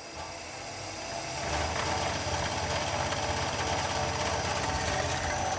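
Delta Rockwell 17-600 drill press's three-phase motor, fed by a VFD, spinning back up in reverse after a direction change: the running sound rises over the first second and a half, then holds steady.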